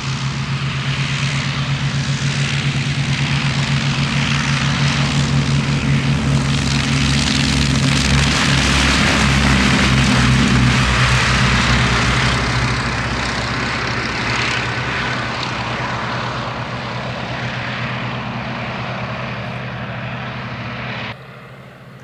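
Two Westland Lysanders' Bristol Mercury nine-cylinder radial engines running at take-off power as the pair take off together, growing louder to a peak about ten seconds in as they pass close, then fading as they climb away. The sound drops off abruptly just before the end.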